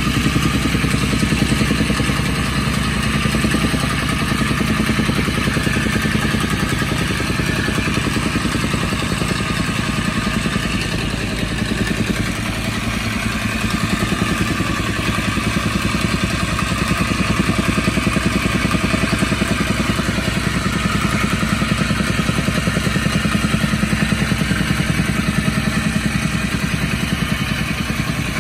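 Gasoline-engine tamping rammer (jumping-jack compactor) running at full throttle, its foot pounding loose soil in a rapid, even rhythm.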